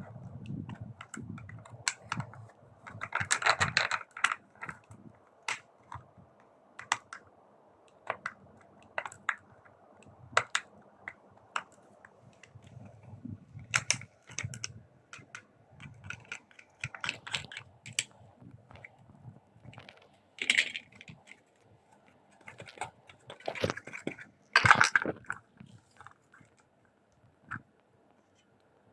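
Irregular light clicks and taps of small hard objects being handled, with a few louder clusters of clatter.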